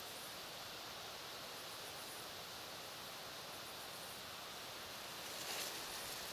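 Faint steady hiss of open-air background, with a short soft rustle about five and a half seconds in.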